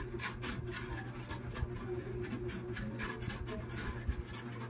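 Plastic packaging crinkling and rustling in quick irregular crackles as hands work the solar panel's cable, over a steady low hum.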